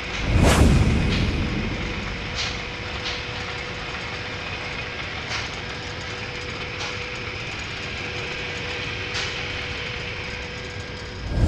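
Steady machine running noise with a constant hum, broken by a few light clicks. A deep boom swells and fades over about a second, starting about half a second in.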